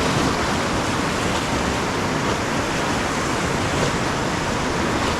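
Whitewater rapid rushing loudly and steadily at about 1600 cubic feet per second, heard from a boat running through it, probably mixed with wind on the microphone.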